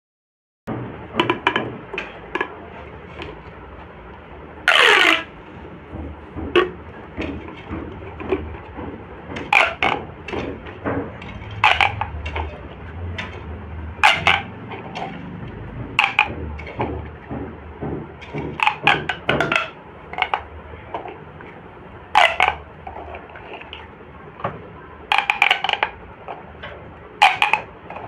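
Plastic pop tubes being stretched and squashed by hand: an irregular run of sharp pops and clicks as the ribbed segments snap open and shut. A few longer ribbed sweeps come when a tube is pulled out quickly, one falling in pitch about five seconds in.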